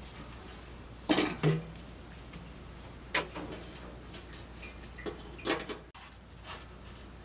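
A few scattered knocks and clunks, the loudest two close together about a second in, over a low steady background hum.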